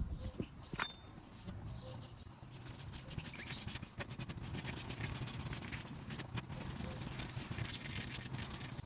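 Mechanic's hand-tool work on metal: a sharp click about a second in, then several seconds of rapid clicking and scraping.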